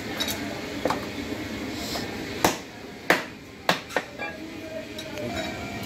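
Butcher's cleaver chopping through goat ribs on a wooden log chopping block: about six sharp chops, the loudest near the middle.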